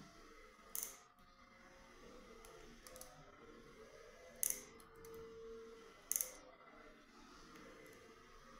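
Orthodontic debonding pliers snapping braces brackets off the teeth: three sharp clicks, about a second in, past the middle and again a second and a half later, with a few fainter clicks of metal on metal between.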